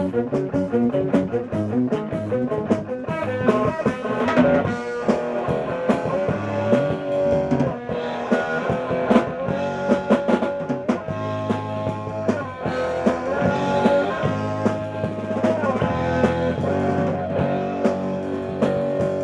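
Rock band playing an original song: drum kit hits driving under sustained electric guitar notes.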